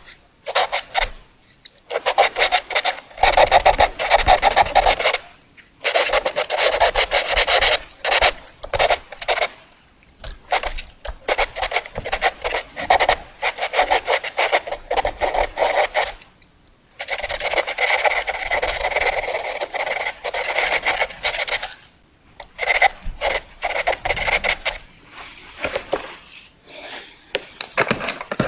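Fast drawing: a drawing tool scratching rapidly back and forth in quick strokes. The strokes come in runs of a few seconds, broken by short pauses, with a longer run near the middle.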